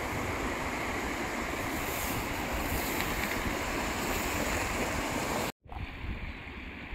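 Steady rushing of the fast-flowing Firehole River. The sound cuts off sharply near the end and gives way to a quieter hiss.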